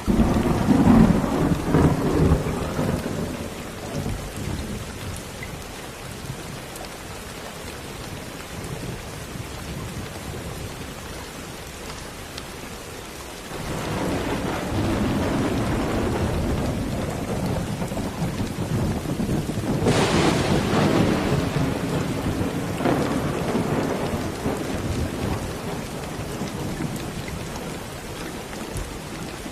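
Steady rain with rolling thunder. A rumble at the start fades over a few seconds; a longer roll builds from about halfway through and dies away near the end.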